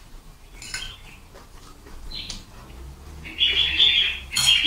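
Noodles being slurped, with a long, loud, high-pitched slurp starting about three seconds in. Before it come a few short clinks and scrapes of forks on plates.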